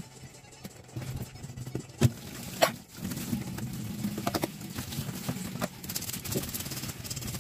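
Hands scooping loose fish scales out of a stainless steel sink, with a few sharp clicks and knocks. About halfway through, the tap comes on and a thin stream of water runs steadily into the steel sink as the hands are rinsed.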